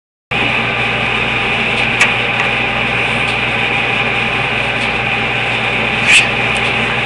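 A steady machine-like hum with hiss, starting abruptly just after the start, with a faint click about two seconds in and a short, louder sound about six seconds in.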